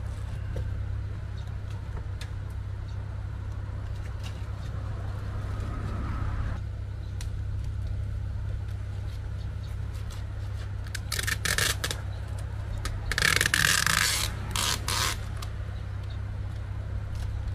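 Adhesive tape being pulled off the roll in rasping strips: a few short pulls about two-thirds of the way in, then a longer, louder pull of about a second and one more short one, over a steady low hum.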